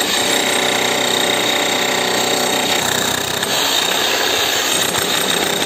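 DCK 11 kg electric demolition hammer running steadily, its chisel bit breaking up a concrete slab.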